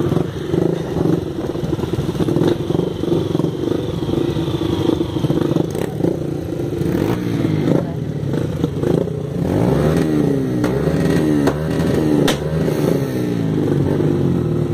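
Dirt bike engines running at idle, with one revved up and down several times in the second half. A few sharp clicks and some clatter sound over the engines.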